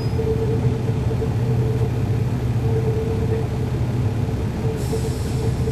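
On-board sound of a NABI 40-SFW transit bus with a Cummins ISL9 diesel engine, running with a steady low rumble and a pulsing hum. A brief hiss comes in near the end.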